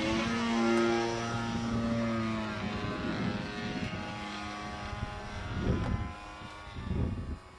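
Zero fighter's propeller engine flying past overhead, its pitch falling as it goes by, then fading. Two low bumps near the end.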